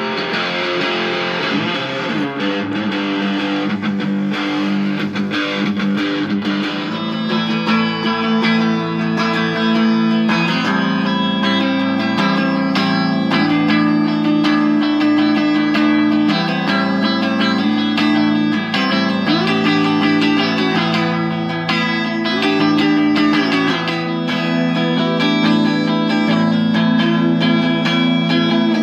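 Electric guitar played through a small Orange amplifier with a touch of overdrive: sustained melodic notes with several bent notes.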